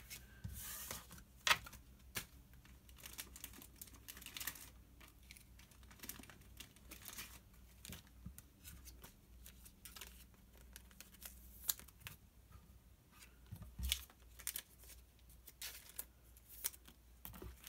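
Faint, scattered rustles, crinkles and light clicks of Pokémon trading cards and their packaging being handled.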